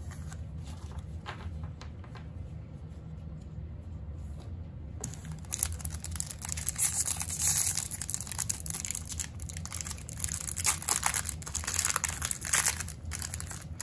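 Foil wrapper of a 2021 Topps Series 1 retail baseball-card pack being torn open and crinkled by hand. The crackling starts about five seconds in and keeps coming and going, over a steady low hum.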